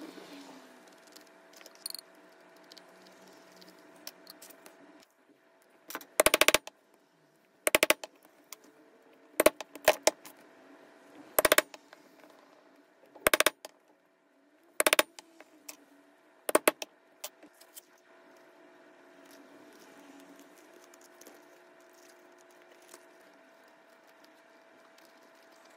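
Mallet striking a leather punching tool: seven short bursts of quick sharp knocks, roughly one every one and a half seconds, with a faint steady hum between them.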